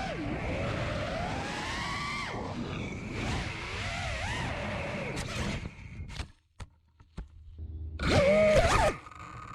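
FPV racing quadcopter's brushless motors and propellers whining, the pitch rising and falling with the throttle. The sound cuts out about six seconds in, leaving near silence with a few clicks, then a short loud burst of whine comes near the end.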